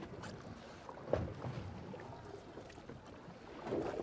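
Background sound aboard a small boat at sea: a low, even wash with one sharp knock about a second in.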